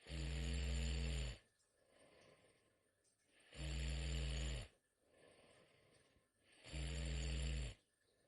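A young girl snoring heavily in her sleep. Three long, low snores, each about a second long and about three seconds apart, with much quieter breathing in between.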